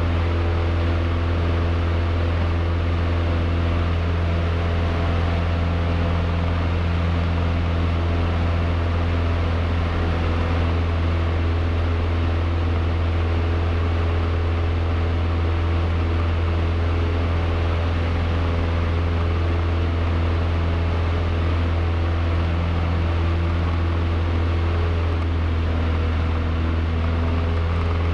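Cessna 152's four-cylinder Lycoming O-235 engine and propeller droning steadily in cruise flight, heard inside the cabin as a loud, even low hum with overtones.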